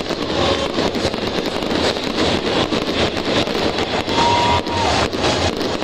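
Stadium fireworks popping and crackling over a dense, steady crowd din, with a brief whistle about four seconds in.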